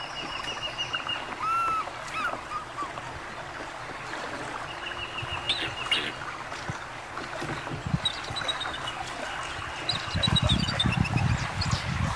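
Bald eagle calling in three runs of quick, high, piping chirps, over steady wind and water hiss. Low rumbling gusts of wind hit the microphone near the end.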